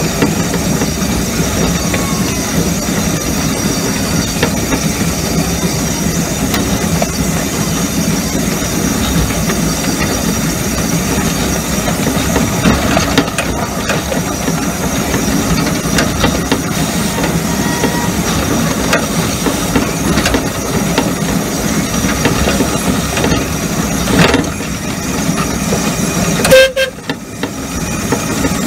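Miniature 7¼-inch gauge steam locomotive running steadily along the track, heard from its own footplate, with its exhaust and wheels on the rails making a continuous rough noise. A brief loud sound with a short tone comes near the end.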